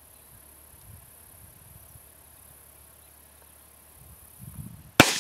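A single sharp shot from a Savage 93 rifle in .17 HMR rimfire magnum, about five seconds in. Before it, a steady high trilling of insects.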